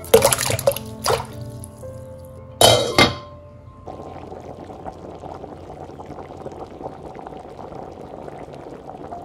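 Chunks of peeled potato splash into a glass bowl of water, then there is one loud clink that rings briefly. From about four seconds in comes the steady bubbling of water boiling around the potatoes in a pot.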